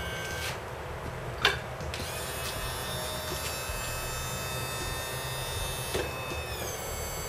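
150 hp Johnson/Evinrude V6 two-stroke outboard running unevenly, with one sharp crack about a second and a half in and its pitch sagging near the end. It is missing and running rough, which the owner puts down to an electrical fault and most likely a failing optical timing sensor.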